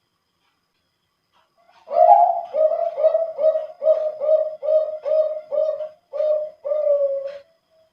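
Male zebra dove (Bangkok perkutut of contest lineage) singing one full song phrase, starting about two seconds in. The phrase is an opening note, then a quick string of about nine short coos, and it closes on a longer, drawn-out coo.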